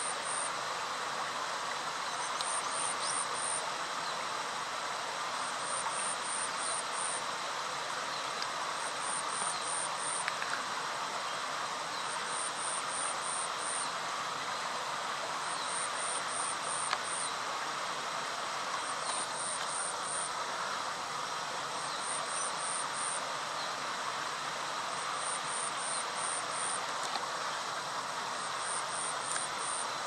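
Steady outdoor hiss of insects and ambience, with a very high-pitched insect call: a short train of rapid pulses that repeats about every three seconds.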